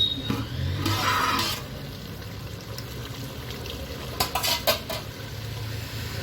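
Metal cooking pot and lid clattering: a scrape about a second in, then a few sharp metallic clinks a little past the middle, over a steady low hum.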